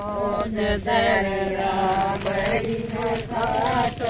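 Elderly women singing a Haryanvi folk bhajan about rabri together without instruments, in long, wavering drawn-out notes.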